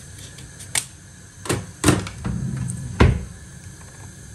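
Kitchen clatter: four sharp knocks and clunks of a cooking pot and utensils being handled at the stove, the last the loudest, over a steady low hum.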